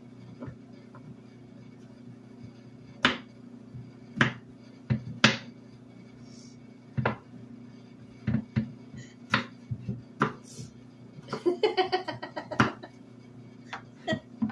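Kitchen knife cutting peeled eggplant into cubes on a bamboo cutting board: single sharp knocks of the blade on the wood every second or so, then a quick run of about eight chops about eleven seconds in. A steady low hum runs underneath.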